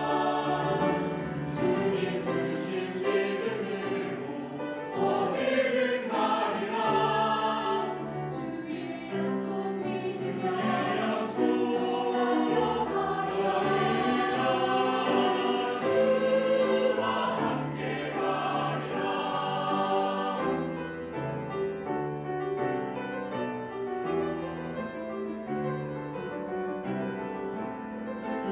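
Mixed church choir singing a Korean hymn in harmony with grand piano accompaniment. About two-thirds of the way through the voices stop and the Young Chang grand piano plays on alone.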